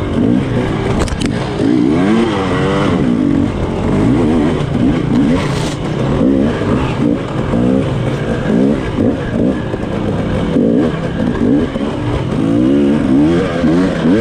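Off-road enduro motorcycle engine revving up and down over and over as the throttle is opened and closed, roughly once a second, over a steady low rumble.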